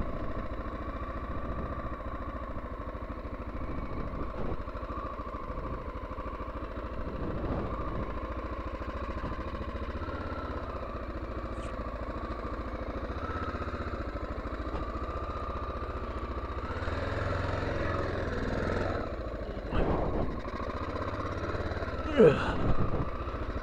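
Honda XL600R's 589 cc single-cylinder engine running as the motorcycle is ridden slowly off pavement onto a rough dirt track. The engine note climbs for a couple of seconds past the middle, and two short louder sounds come near the end.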